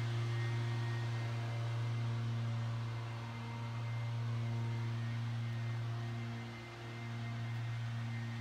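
Steady low mechanical hum with a few fainter higher overtones, easing briefly a little before the end: a motor-driven machine running.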